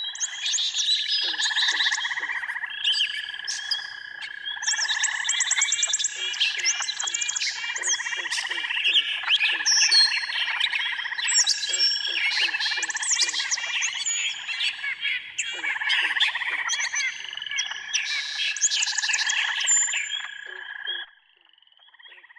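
A dense chorus of birds chirping and trilling over a steady, pulsing chorus underneath, ending suddenly near the end.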